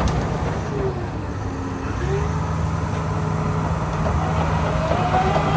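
Diesel engine of a Dynapac SD2500CS asphalt paver running steadily. Its hum softens briefly about a second in and picks up again about two seconds in.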